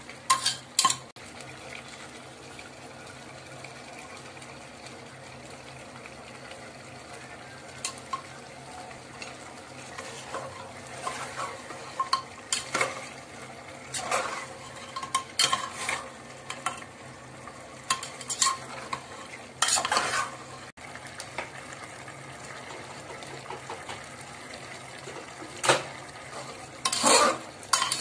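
A metal spoon stirs and scrapes beef in an aluminium pressure cooker, with clinks against the pot, over a steady sizzle of the meat frying in its masala. The scraping and clinking come in bursts, busiest in the middle and near the end.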